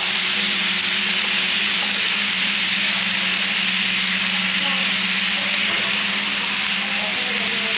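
Steady hiss and rumble of HO scale model freight cars' metal wheels rolling along the track as a long train passes close by, over a low steady hum.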